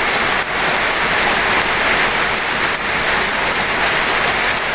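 Steady rain of moderate strength falling on fields and leafy plants, an even hiss without break.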